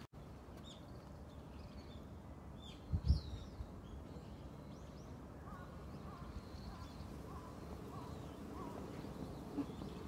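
Small birds chirping outdoors: short high chirps in the first few seconds, then a row of about six evenly spaced lower call notes in the second half, over a steady low background rumble. One brief low thump about three seconds in.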